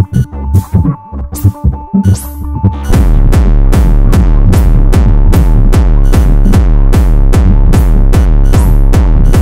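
Live techno played on a modular synthesizer rig: sparse electronic percussion over held synth tones, then about three seconds in a full, steady beat with deep bass drops in, pulsing about three times a second.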